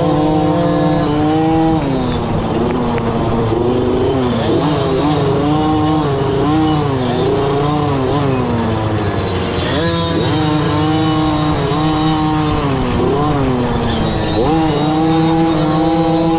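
Small pee-wee dirt bike engine revving up and down as the bike rides a rough trail, its pitch rising and falling every second or two, with wind rushing over the microphone.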